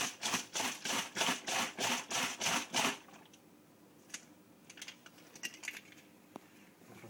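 A capped plastic bottle of water and toilet paper shaken hard, about ten sloshing shakes in quick, even succession in the first three seconds, then a few faint clicks as the bottle is handled.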